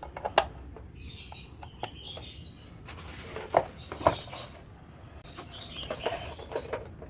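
Clicks and knocks of connector plugs being pushed into a small aluminium-cased mini car amplifier and the unit being handled and set down on the table, with cables rustling. The sharpest knocks come about half a second in and again around three and a half to four seconds in, with faint high chirping in the background between them.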